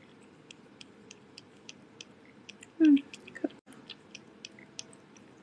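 Cat licking a squeeze-pouch treat: quick, wet little tongue clicks, three or four a second. About three seconds in comes one brief, louder voiced sound that falls in pitch, then a shorter one.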